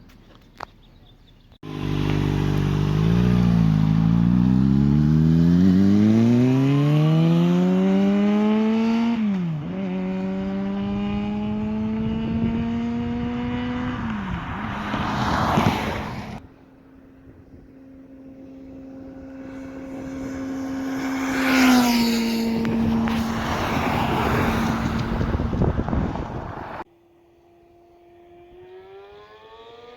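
Kawasaki ZX-6R inline-four through a Yoshimura aftermarket exhaust, accelerating hard past with its pitch climbing and two upshifts. Then a second pass in a steady gear that swells, peaks and drops in pitch as the bike goes by, and near the end another run starts to build.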